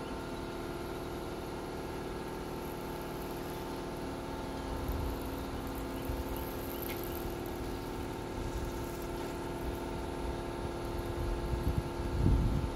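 Steady mechanical hum of an unseen motor or engine running. Near the end comes a louder low rumble as a bare pickup truck frame rolls on its wheels across concrete.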